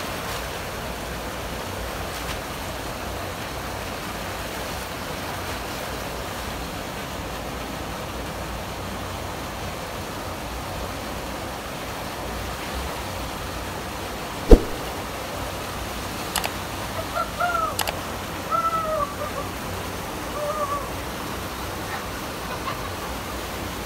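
Steady rush of water pouring over a low concrete weir into a canal. About halfway through there is one sharp knock, the loudest sound, followed by a few short calls that rise and fall in pitch.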